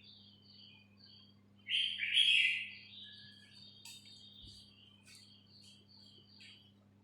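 Small birds chirping: short high notes repeating about twice a second, with a louder, harsher call about two seconds in. A faint steady electrical hum lies underneath.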